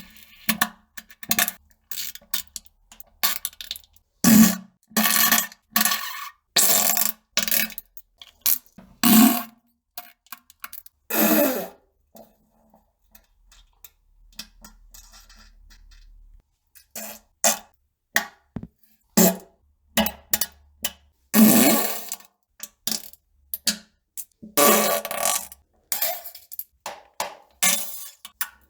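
A rapid series of fart sounds, some short pops and some longer low buzzing blasts, with a pause of about four seconds midway.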